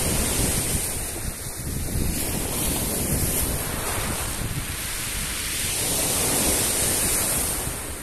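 Black Sea surf: small waves breaking and washing onto the shore, swelling and easing, with wind buffeting the microphone as a low rumble.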